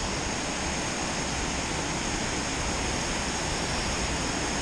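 Steady rush of water pouring down a dam spillway, an even, unbroken noise.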